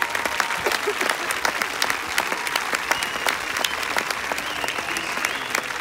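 Tennis spectators applauding the end of a match: many hands clapping steadily and densely.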